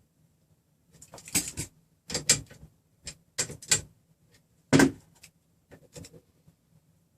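Short bursts of clicking and scraping from metal parts and hand tools being handled while the nuts on a threaded-rod frame are adjusted, in about five clusters spread over five seconds, the sharpest near the middle.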